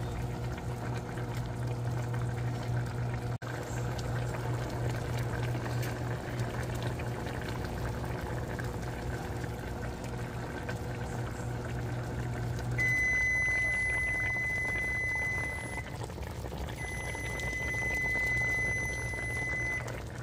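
A pot of beef curry simmering, a steady bubbling hiss with a low hum under it. About two-thirds of the way in the hum stops and a high electronic beep sounds, held about three seconds, twice with a short gap.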